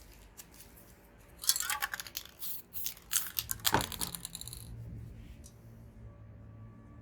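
A burst of dense clicking and rattling handling noise lasting about three seconds, with a thump among it, then quiet.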